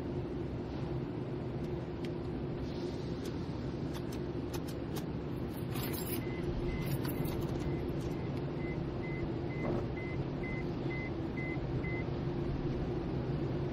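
Automatic tunnel car wash heard from inside the car: a steady rumble and hum of the wash machinery and water spray, with cloth brushes scrubbing and slapping over the body and a flurry of clicks and rattles midway. From about six seconds in, a high beep repeats about twice a second for six seconds, then stops.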